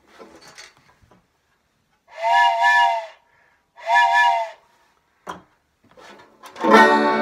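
Hand-held wooden train whistle blown twice, each blast about a second long and sounding a chord of several pitches that bends slightly up and down, like a steam locomotive's chime whistle. A banjo starts playing near the end.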